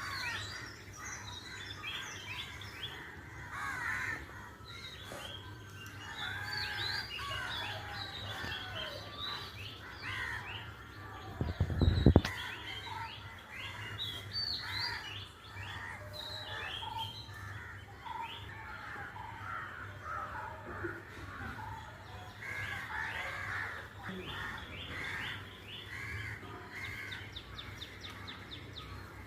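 Many small birds chirping and calling at once in a busy morning chorus, with many short quick chirps overlapping over a steady low hum. A loud low thump comes about twelve seconds in.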